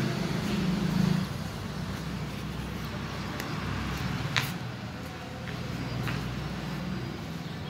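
A motor vehicle engine running steadily nearby, a low hum throughout. A few short clicks or knocks sound over it, the clearest about four seconds in.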